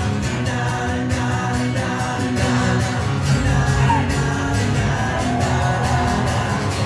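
Live rock band playing at full volume, with singing over guitars and a steady drum beat.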